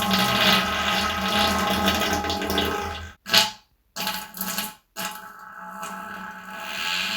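Farts: one long steady blast lasting about three seconds, then a short burst, a couple of brief ones, and a second long one from about five seconds in.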